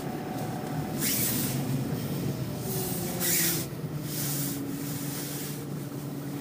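Car cabin noise while driving: a steady engine and road hum with tyre noise, broken by three brief hissing whooshes.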